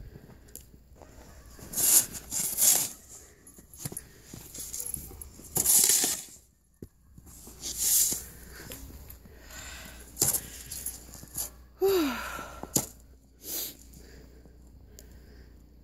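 Dogue de Bordeaux sniffing and snuffling with its nose in the snow, loud breaths coming every second or two.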